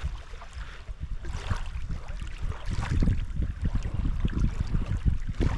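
Irregular low rumbling and dull knocks with a faint rustle, typical of wind on the microphone and handling noise, growing stronger about three seconds in.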